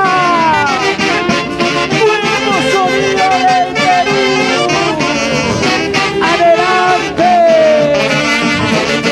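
Dance-orchestra music played live, its saxophone and brass section carrying the melody with several falling slides over a steady beat.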